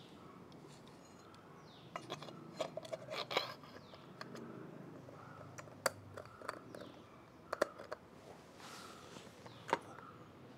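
Small parts and tools being handled: a quick run of light clicks and clinks about two seconds in, then a few single sharp clicks spread through the rest, over a faint steady hiss.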